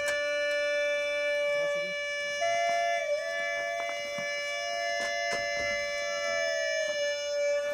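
Hulusi-style gourd flute with a drone pipe playing long held notes: a steady drone with a second, higher note joining about two seconds in, dipping briefly, and falling away near the end.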